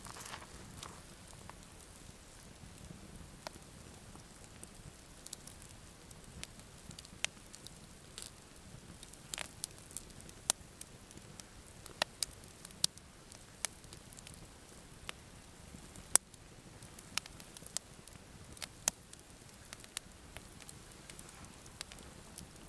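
Campfire of split wood logs burning, crackling with irregular sharp pops, a few louder than the rest.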